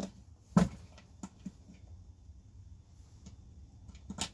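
A few sharp clicks and knocks of hand tools on a wooden workbench as pliers are put down and a utility knife is taken up to strip a thin wire. The loudest knock comes about half a second in, another near the end, with light ticks between.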